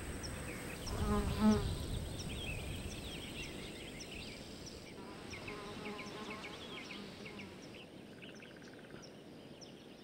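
Outdoor field ambience of insects buzzing, with many short high chirps repeating throughout. The whole sound slowly fades out toward the end.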